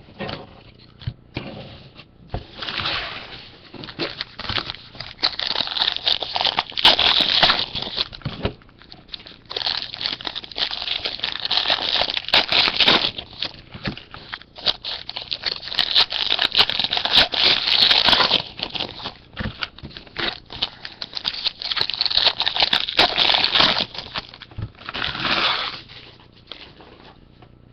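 Plastic wrapping and cardboard packaging being handled: crinkling and rustling in irregular stretches of a few seconds, with many small clicks.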